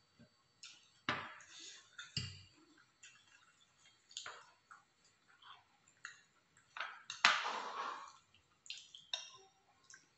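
Eating at a table: a spoon clinking and scraping in a ceramic bowl of peanut sauce, with chewing and scattered short clicks. The loudest sound is a brief noisy burst about seven seconds in.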